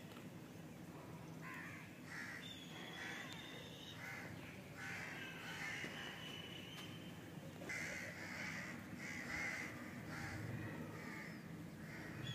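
Crows cawing repeatedly, a series of short harsh calls that come thicker in the second half.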